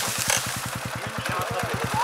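KTM single-cylinder enduro motorcycle engine idling, with an even beat of about a dozen firing pulses a second.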